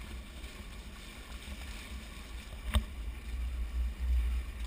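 Water rushing past the hulls of a Hobie 16 catamaran under sail, with wind rumbling on the microphone, swelling near the end. One sharp knock a little before three seconds in.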